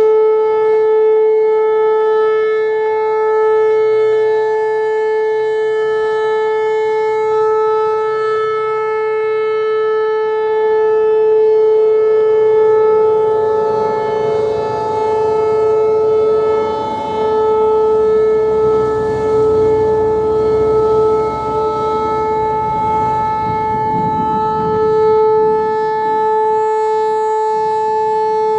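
Whelen Vortex R-4 electronic rotating storm siren sounding a steady tone at one pitch, its loudness swelling and easing slightly as the horn turns.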